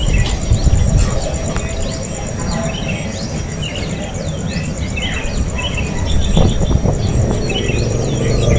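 Birds giving many short, quick chirps over a steady, high, pulsing insect trill, with a low rumble underneath.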